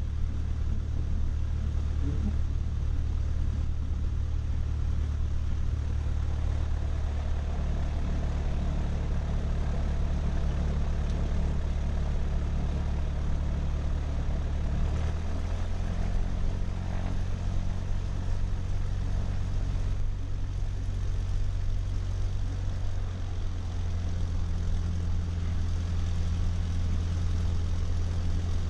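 Cessna 152's four-cylinder Lycoming engine running at low power while taxiing, heard from inside the cockpit as a steady low drone; about halfway through, its note steps up slightly as the revs rise.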